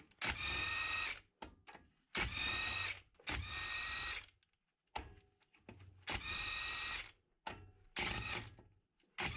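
Metabo HPT WR36DB 36V cordless half-inch impact wrench running on a high setting in about five short bursts of roughly a second each, with a steady whine, as it backs bolts out of a small air-cooled engine's cylinder head.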